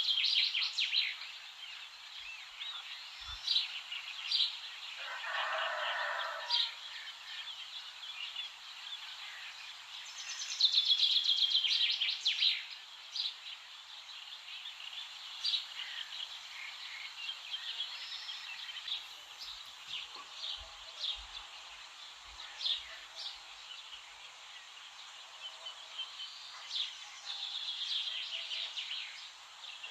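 Dawn chorus of several songbirds singing, with loud rapid trills at the start, about eleven seconds in and near the end. A single lower call sounds about five seconds in.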